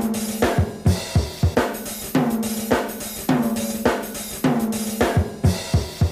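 Background music with a steady drum beat (kick drum, snare and hi-hats) over a repeating bass note.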